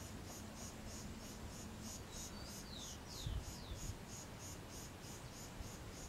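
Insects chirping in a steady high pulse, about four chirps a second, with four short falling whistles about two to four seconds in.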